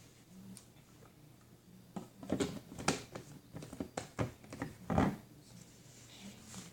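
Slime being squished and kneaded by hand, giving a quick run of short wet clicks and squelches for about three seconds, the loudest near the end of the run.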